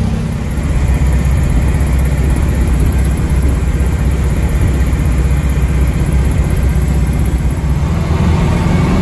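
Steady engine and road rumble of a 1960s Volkswagen, heard from inside the car while it is driving.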